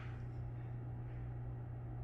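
Room tone: a steady low hum under faint background hiss, with no distinct event.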